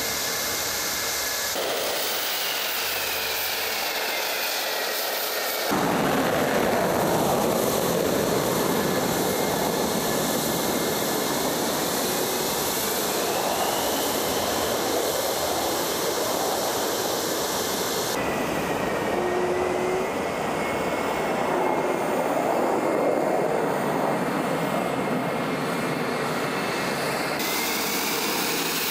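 Su-57 fighter jets' turbofan engines: a steady high turbine whine while taxiing, then, about six seconds in, a louder jet roar that holds through the takeoff. High whine tones glide slowly up and down throughout.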